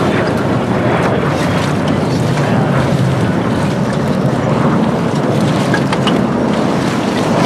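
Steady rushing roar of a Blue Angels F/A-18 Hornet's jet engines during a low smoke-trailing pass, mixed with wind on the microphone.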